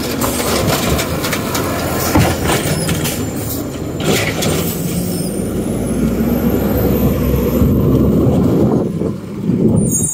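Natural-gas automated side-loader garbage truck running close by, with knocks and clanks in the first few seconds. A thin high whine climbs from about halfway through and drops away near the end.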